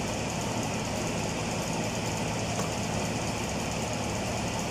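Steady mechanical drone with a low hum, like an engine idling, running evenly throughout.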